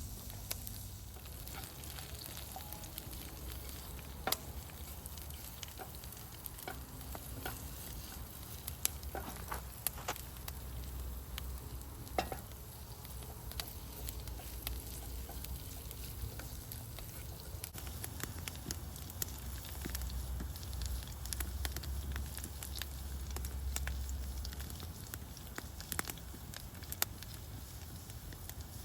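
Food sizzling in a pan over a campfire, with scattered sharp crackles and pops.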